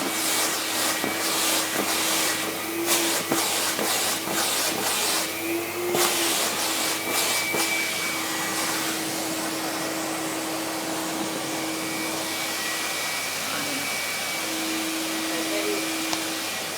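Vacuum cleaner running with a steady hum while its nozzle is worked over a dog's coat to pull out loose hair. The suction sound flickers and wavers during the first half, then settles and runs evenly.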